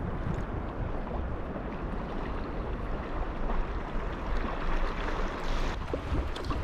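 Wind and waves on open sea, with wind rumbling on the microphone.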